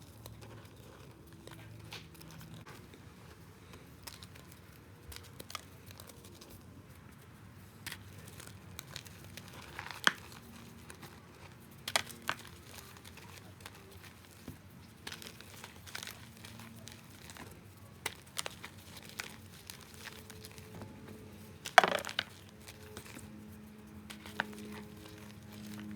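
Balls of reformed gym chalk being crushed, crumbling and crunching in a steady run of small crackles. A few louder sharp cracks break through, the loudest about three quarters of the way through.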